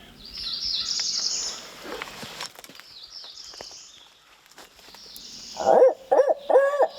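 Songbirds chirping, then near the end an owl breaks into a loud, rapid series of rising-and-falling hoots.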